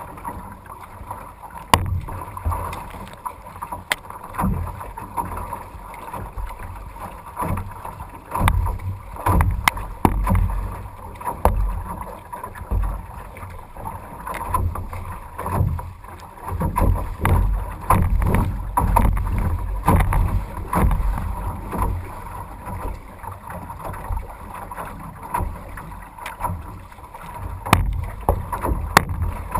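A canoe being paddled through wind-blown chop: water sloshes and slaps against the hull in irregular surges, with wind rumbling on the microphone. A few sharp knocks come through, about two and four seconds in and again near the end.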